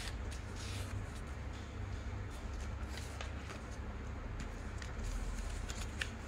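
A sheet of paper being folded and smoothed by hand on a tabletop: soft rustling and crinkling with a few sharp paper crackles, the loudest about six seconds in, over a steady low hum.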